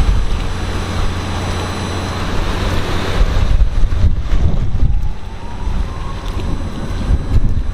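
Wind buffeting the microphone with a heavy low rumble. In the second half a faint siren slowly rises in pitch.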